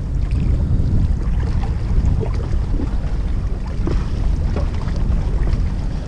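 Wind buffeting the microphone, a steady low rumble, with a few faint clicks of fishing tackle being handled in the middle.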